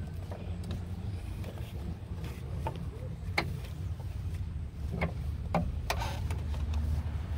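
A few light clicks and knocks as the ABS module is handled and seated in its mount. Under them runs a steady low rumble.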